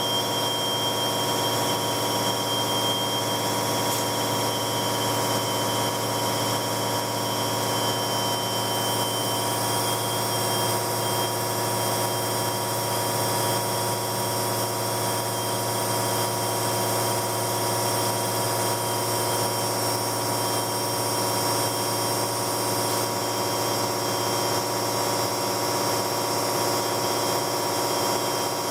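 Machining center deep-hole drilling with a gun drill: a steady mechanical whine of many constant tones over a dense hiss. A high tone fades out in the first few seconds, and a brighter high hiss comes in for a stretch in the middle.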